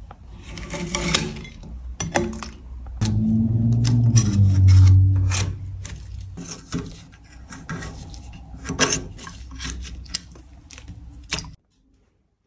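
Metal putty-knife scraper scraping thick, crumbly candle wax off wax-coated metal edges, with repeated sharp scrapes and clicks. A loud low hum swells for about two seconds partway through, and the sound cuts off abruptly shortly before the end.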